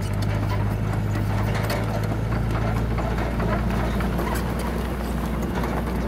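Komatsu D31PX crawler bulldozer's diesel engine running steadily under load, its note dropping lower about two seconds in, with irregular clanks and knocks from the steel tracks and the rock being pushed by the blade.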